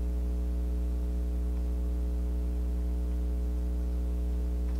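Steady low electrical hum, mains hum with a stack of overtones, that does not change.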